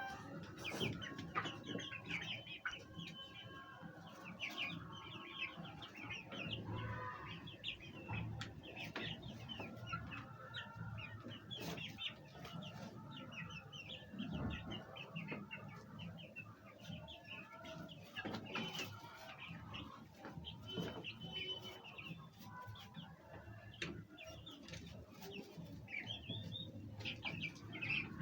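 Domestic hens clucking, many short calls overlapping without a break.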